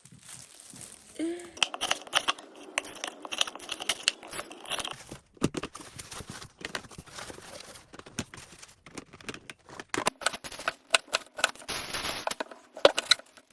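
Crinkling and rustling of packaging being handled, with many short irregular clicks and crackles.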